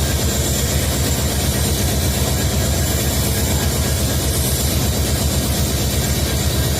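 Diesel engines of twin EMD WDG4 (GT46MAC) locomotives running steadily: a low, even throb with a faint steady high whine above it.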